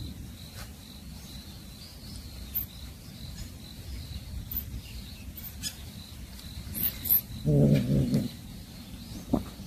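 Insects trill steadily, with a few faint, very high squeaks. About three-quarters of the way through comes a short, low animal call, the loudest sound.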